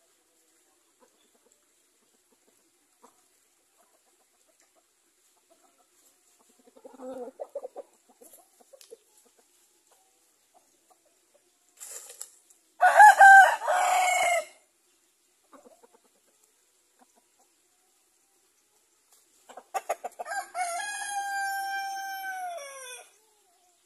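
Rooster crowing twice: a short loud crow about halfway through, then a longer crow near the end that holds one note and falls away at the finish. A few soft clucks come before.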